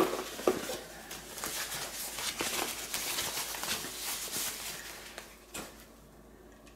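Packing wrap rustling and crinkling as a sensor module is unwrapped by hand, with a light knock at the start and a few small clicks of handling.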